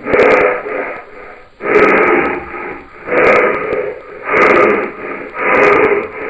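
Heavy, wheezy breathing in a steady rhythm, a noisy breath about every second and a quarter.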